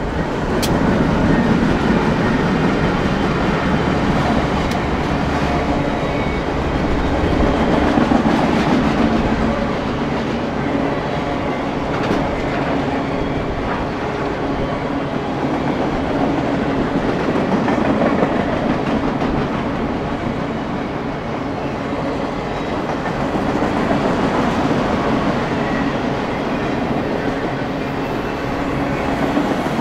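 Freight train of autorack cars rolling past close by: a steady rumble and rattle of steel wheels on the rails.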